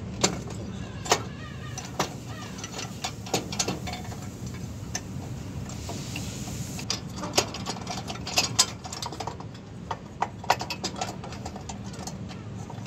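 Sharp clicks and knocks as a rubber air hose is worked loose and pulled off its metal fitting on a truck's exhaust brake chamber, over a steady low engine hum.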